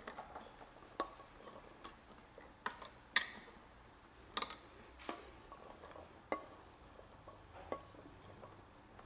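Cooked chickpeas tipped from a metal pot into a plastic food-processor bowl, landing with scattered soft taps and clicks, roughly one a second at irregular spacing, the sharpest a little past three seconds in.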